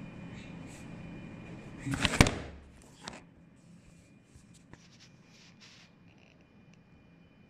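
A sharp knock with a short rustle about two seconds in, then a smaller click about a second later, over a faint low hum; a few faint ticks follow.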